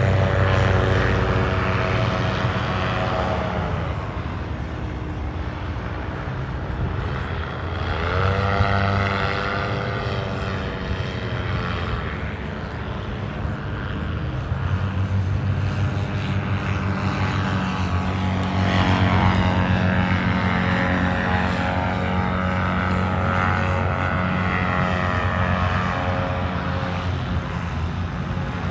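Paramotor engine and propeller running in flight overhead. The pitch and loudness rise and fall several times, with a sharp upward sweep in pitch about eight seconds in.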